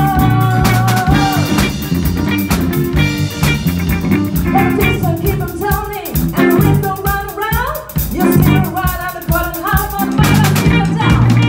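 Live rock band playing on electric guitars, bass guitar and drum kit, with a sung vocal line over a steady drum beat.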